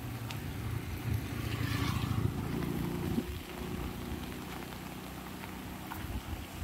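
Light rain on an umbrella during a walk, under a steady low rumble, with a low engine hum of a passing motor vehicle swelling and then falling away about two to four seconds in.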